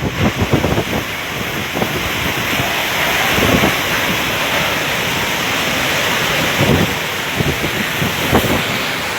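Hurricane wind and driving rain in a loud, steady roar, with gusts thudding on the microphone in the first second and now and then after.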